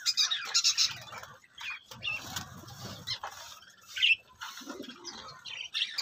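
A flock of budgerigars chirping in short, scattered calls, with bursts of wing flapping, and one sharp, loud chirp about four seconds in.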